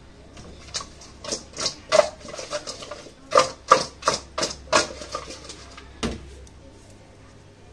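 Cut chicken pieces being tossed in a stainless steel mixing bowl: a run of about fifteen irregular knocks and clatters, some with a short metallic ring, stopping about six seconds in after one last knock.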